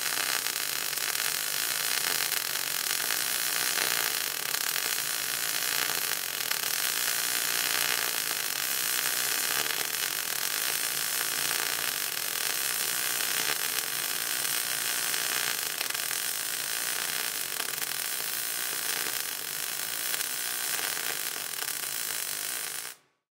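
MIG welding arc burning steadily as a lap weld is run on steel plate, an even, hissing crackle. It cuts off abruptly near the end as the arc is broken.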